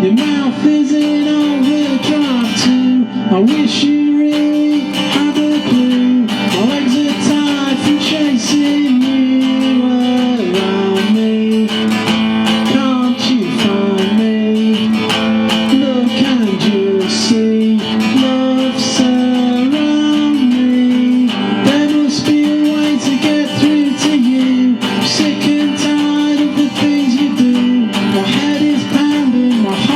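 Solo acoustic guitar playing an instrumental passage of a blues song, picked and strummed, with some notes sliding or bending in pitch.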